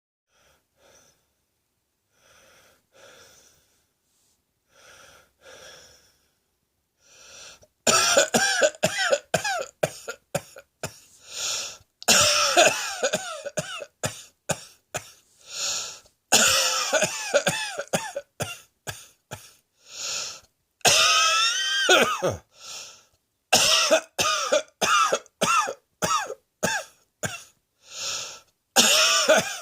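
A person coughing over and over: a few faint, soft coughs at first, then from about eight seconds in loud fits of rapid coughs, with breaths drawn in between the fits.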